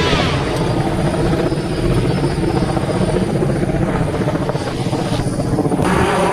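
Helicopter rotor beating loud and steady, close by, while the helicopter holds over a rooftop during a sling-load lift of an HVAC unit.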